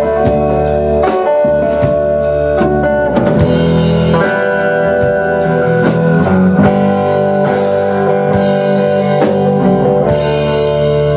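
Rock band playing an instrumental passage on electric guitar, electric bass and drum kit, with no singing. A steady drum beat runs for the first few seconds, then thins to scattered hits under held guitar and bass chords.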